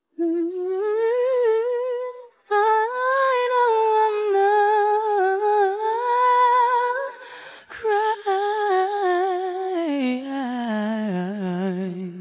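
A woman's isolated live lead vocal, from a concert microphone feed with the band filtered out, vocalising without words with a wide vibrato. It comes in three phrases split by short breaths and sinks to a low held note near the end, over a steady hiss.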